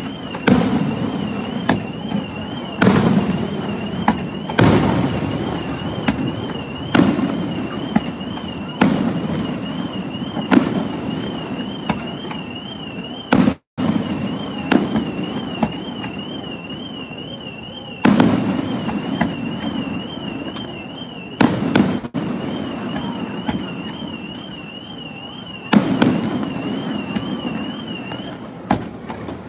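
Fireworks show: aerial shells bursting with a boom every second or two, each followed by a rumbling, echoing tail, some in quick pairs. A car alarm warbles rapidly on a high tone throughout, stopping shortly before the end, and the whole sound cuts out for a moment near the middle.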